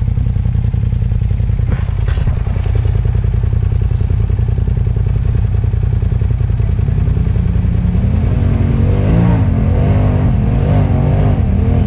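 Polaris RZR side-by-side's engine running with a steady low rumble, then from about seven seconds in revving up and down again and again as the machine works through deep mud ruts.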